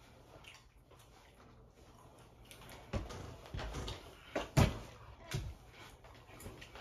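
Rustling and a few dull thumps as Jordan sneakers are pulled on and worked onto the feet, starting about three seconds in, with the loudest thump a little after the middle.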